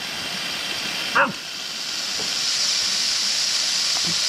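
Water spraying from a garden hose nozzle in a steady hiss, with a short yip from a puppy about a second in.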